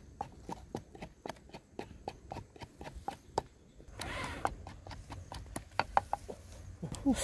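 Wooden pestle pounding chillies in a clay mortar: even, sharp knocks, about three to four a second. A steady hiss joins them about halfway through.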